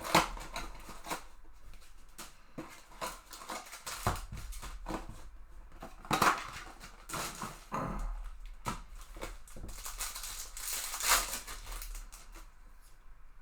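Crinkling and tearing of trading-card box and pack wrappers, with cards rustling and sliding as they are handled: irregular crackles with a few sharper snaps near the start and about six and eleven seconds in.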